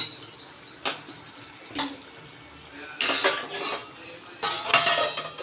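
Metal slotted spatula knocking against a kadhai three times, about a second apart. It then scrapes and stirs through chicken pieces in the pan in two longer spells in the second half.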